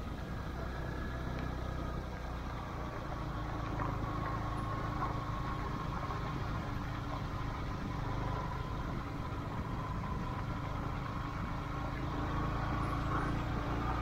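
A motor vehicle's engine running steadily, with a steady low hum and faint whine-like tones above it.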